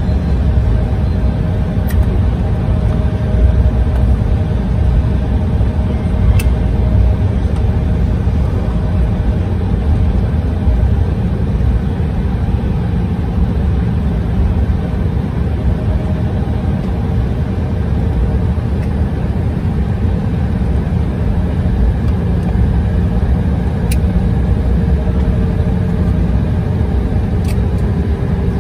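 Airliner's engines and airframe heard inside the passenger cabin while taxiing: a loud, steady low rumble with a faint hum that slowly drifts in pitch and dips slightly near the end.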